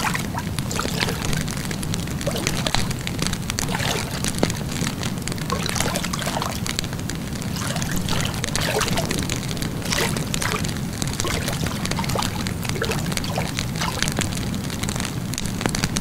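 Wood fire crackling and popping with irregular sharp snaps over a steady low rumble.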